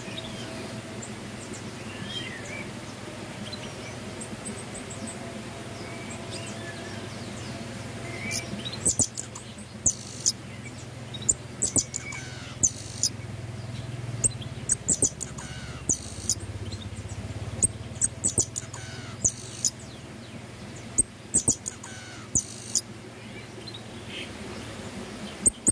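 Pin-tailed parrotfinch singing: a run of very high, thin, short notes that starts about a third of the way in, over a steady low hum.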